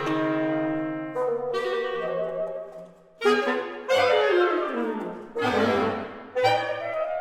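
A reed quintet of oboe, clarinet, saxophone, bass clarinet and bassoon playing contemporary chamber music: sudden loud chords, five attacks in a row, with fast falling runs of notes in the middle.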